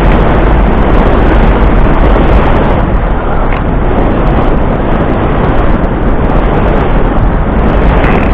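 Loud, steady rushing and buffeting of wind on the microphone, with a heavy low rumble.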